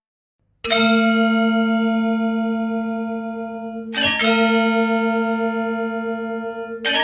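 Gamelan music: a struck metal tone rings out about half a second in and slowly fades, then a second strike comes at about four seconds and rings on in the same way.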